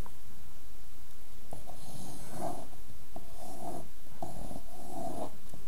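Pencil lead of a drawing compass scratching across drawing paper as arcs are swung: three raspy strokes of about a second each, each starting with a small click.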